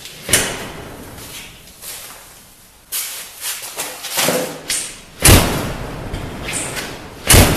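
Entry door knob and latch clicking and rattling as the knob is worked, then the walk-through door shut hard twice with loud thuds, the second near the end. The latch catches, but the lock is not engaging, so the door is latched, not secured.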